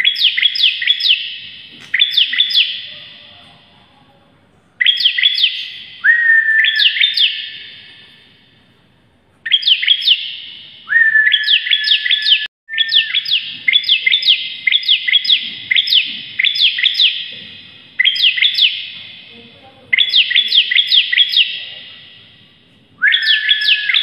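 Bar-winged prinia (ciblek) singing hard: repeated bursts of fast, sharp rising notes, several to a second, some bursts opened by a short held whistle. Each burst trails off in an echo, and the longest run of notes comes about halfway through.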